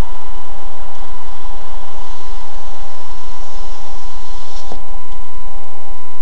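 Loud, heavily clipped dashcam audio: a steady electrical buzz with a constant whine and no change in pitch, typical of a cheap dashcam's microphone picking up its own interference. A single short click about three-quarters of the way through.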